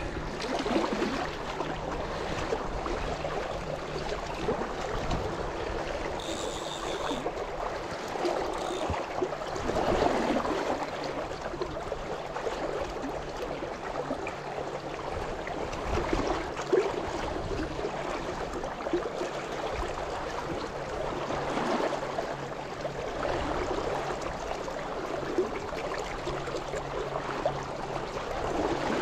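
Shallow river current rushing and gurgling past a wading angler's legs, a steady water noise that swells and eases a little.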